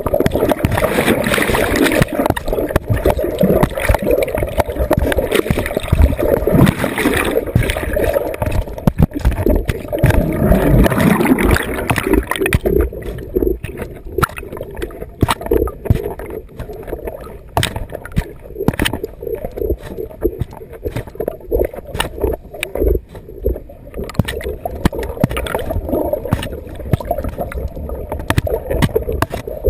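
Muffled underwater water noise through a GoPro's waterproof housing, on a golden retriever swimming and paddling in the sea. About twelve seconds in the sound turns duller, with scattered knocks.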